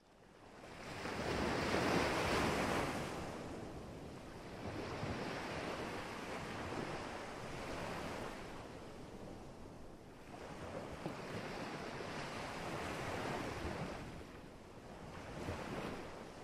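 Ocean surf, waves breaking and washing back in slow surges that swell and fade; the first surge, about two seconds in, is the loudest.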